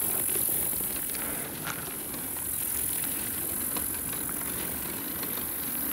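Bicycle rolling over rough, broken asphalt: steady tyre noise with small rattles and clicks from the bike, and a steady high insect chorus behind.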